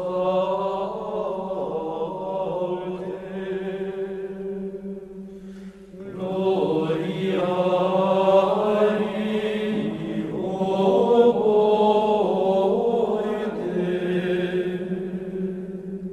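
Sacred vocal chant: voices sing a slow melody over a steady, held low drone, with a short dip about six seconds in before the next phrase.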